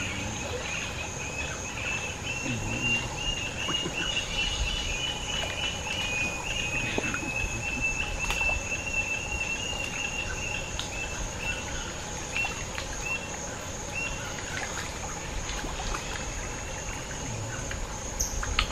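Tropical forest creek ambience: a steady high insect drone throughout, with a long run of rapid chattering calls from a bird that stops about fourteen seconds in. A sharp click comes near the end.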